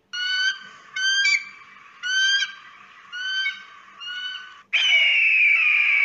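Eagle calling: five short, clear calls about a second apart, each rising then dropping in pitch, then a long, high scream starting near the end.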